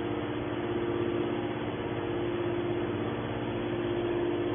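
Scrap metal processing machinery running steadily, a constant mid-pitched drone with a noisy hum and no crashes or impacts.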